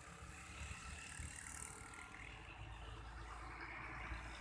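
Faint outdoor background noise: a low rumble with a light hiss, the rumble growing a little stronger about halfway through.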